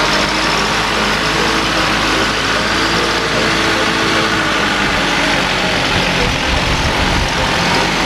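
A laden light truck's engine running steadily as the truck drives along a dirt track.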